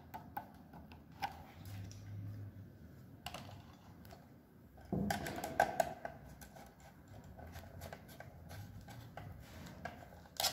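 Faint scattered clicks and scrapes of a small screwdriver and wire ends being worked into screw terminal blocks, with a louder stretch of handling noise about five seconds in.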